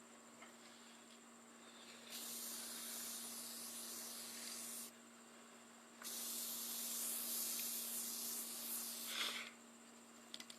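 Aerosol can of clear gloss crystal glaze spraying in two bursts of hiss, about three seconds each with a short pause between, as the finish is put on the leather and horns of a longhorn mount.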